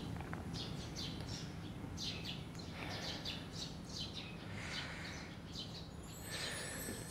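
Small birds chirping in the background, many short chirps a few times a second, over a faint steady low hum.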